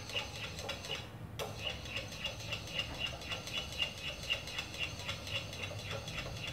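Light, regular clinking of a utensil against a small ceramic bowl as gelatin is stirred to dissolve it in a hot-water bath, about three to four ticks a second, with a brief pause about a second in.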